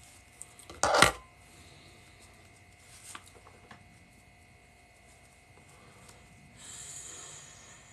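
A short, loud blast of noise about a second in, then a soft breathy hiss lasting about a second near the end as a man blows out smoke.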